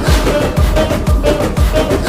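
Background music with a steady electronic dance beat and a melody over it.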